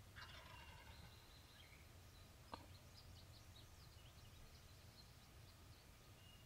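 Faint outdoor quiet with wild birds calling: a short call right at the start, then a string of brief high chirps. A single sharp click about two and a half seconds in, over a steady low rumble.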